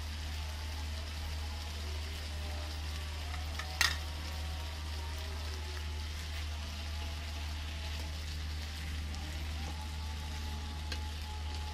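Potato wedges sizzling steadily as they fry in oil in a pan, over a steady low hum. One sharp knock sounds about four seconds in.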